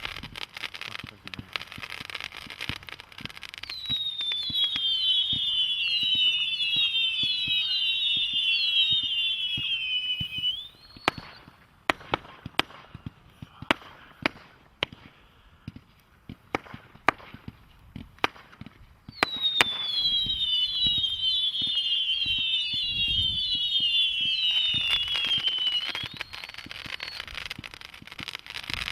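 A 500-shot firework cake firing. First comes a crackling hiss, then a run of many overlapping whistles, each falling in pitch, for several seconds. Midway comes a stretch of separate sharp bangs, then a second run of falling whistles.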